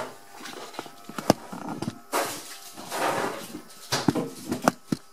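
Close-up handling noise: a few sharp clicks and several short rustling swells, as the camera is bumped and moved.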